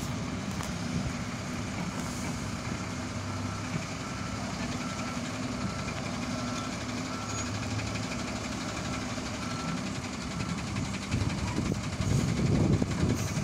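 Magirus turntable-ladder fire truck's diesel engine running low while its reversing alarm beeps steadily, about one beep every 0.8 seconds, as the truck backs up. The beeping stops about ten seconds in and the engine rumble grows louder near the end.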